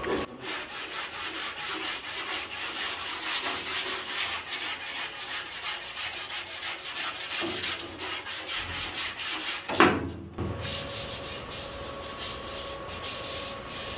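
Hand sanding with a hard straight sanding block on the Bronco's bare steel and body filler: steady back-and-forth scraping strokes. A brief break with a single knock about ten seconds in, then the strokes resume.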